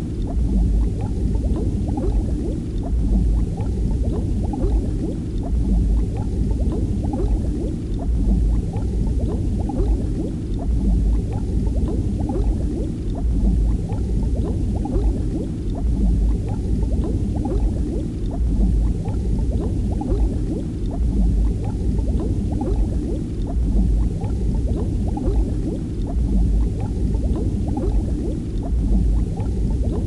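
Underwater ambience: a muffled low rumble full of small bubbling crackles, swelling gently about every two and a half seconds.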